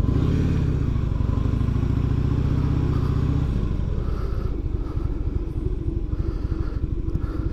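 Harley-Davidson Heritage Softail's air-cooled V-twin engine running while the bike is ridden, heard from the rider's seat. It holds a steady note for the first half, then eases off, turning quieter and choppier as the bike slows.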